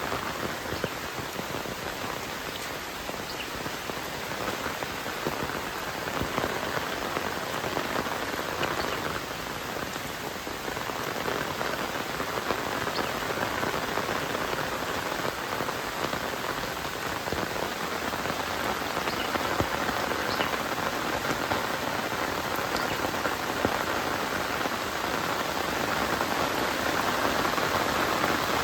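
Heavy rain falling steadily, a dense hiss with scattered sharper drop taps, growing somewhat louder toward the end.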